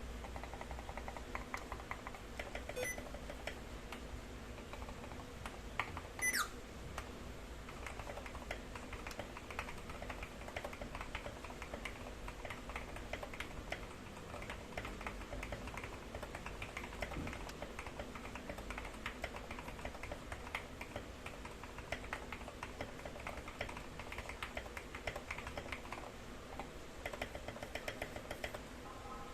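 Continuous typing on an Epomaker GK68XS mechanical keyboard with Gateron Pro Milky Yellow linear switches: a steady stream of several key clacks a second. About six seconds in there is one brief high squeak that falls quickly in pitch.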